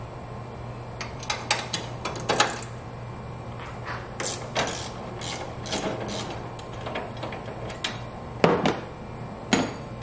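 Irregular metal clicks and clinks of a combination wrench on the nut of a strut tower bar mount as the nut is loosened, the two sharpest knocks near the end, over a steady low hum.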